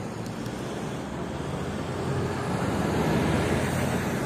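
Road traffic noise, a steady rush of passing cars that swells a little about halfway through.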